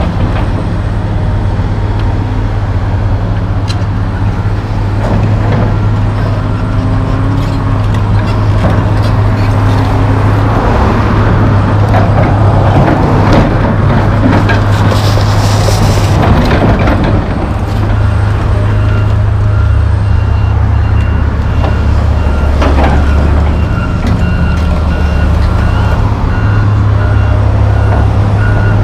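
John Deere 470G track excavator's diesel engine running steadily under load while the bucket scrapes and digs through soil and rubble, with scattered clanks and knocks. A backup alarm beeps steadily through the second half.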